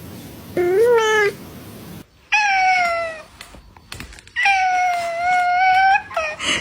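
Cat meowing: three separate meows, the first short and rising then dropping, the second falling in pitch, the third long and drawn out, followed by a short call near the end.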